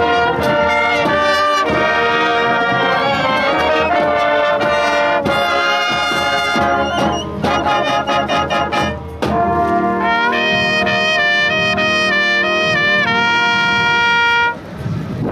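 Marching band playing, brass over woodwinds and drums: a run of short detached hits partway through, then long held brass chords that step through changes and break off abruptly near the end.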